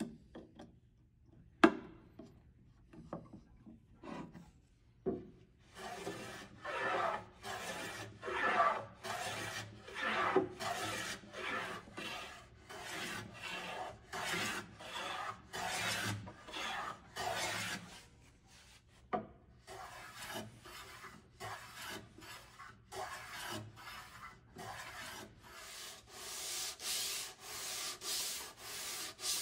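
Hand plane set down and adjusted with a few clicks, one sharp, then taking a run of short cutting strokes along the edge of a walnut board, each stroke a brief rasping hiss, about one to two a second. Near the end come quicker, brighter rubbing strokes of a hand along the edge.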